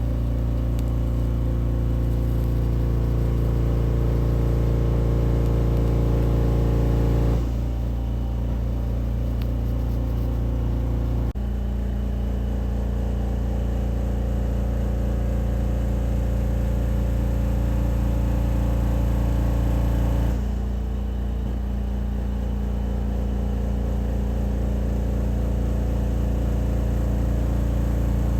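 Steady mechanical hum with a low drone and several level tones above it. Its pitch and balance change abruptly three times, about a quarter, two fifths and two thirds of the way through.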